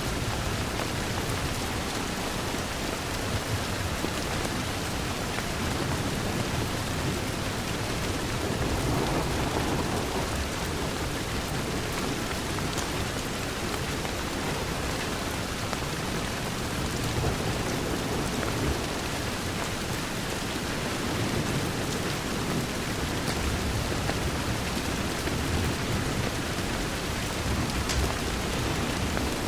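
Steady rain pattering on a window, with a low rumble underneath. A few faint sharp crackles from a wood fire come through now and then.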